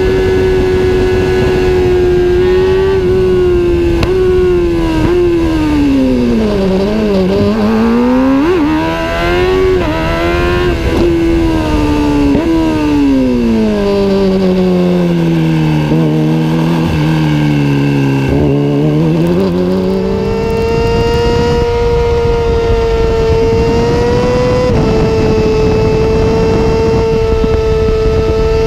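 Kawasaki ZX-6R inline-four sport-bike engine running loud through a Two Brothers aftermarket exhaust. Its pitch holds high, sags and climbs back twice, deeper the second time, then settles steady a little higher.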